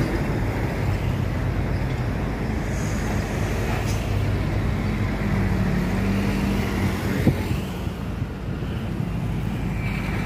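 Steady road traffic noise with motorbike engines running, and one sharp click about seven seconds in.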